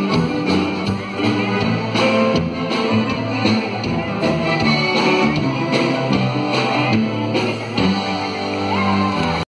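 Live band music with a steady drum beat, recorded from the crowd on a phone; it cuts off abruptly near the end.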